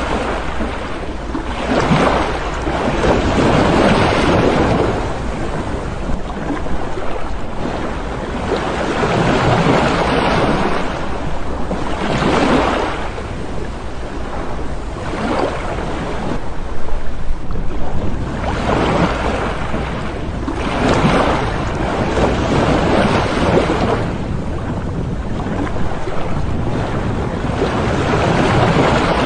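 Waves breaking on a shore, coming in surges that swell and fade every few seconds, with wind rumbling on the microphone.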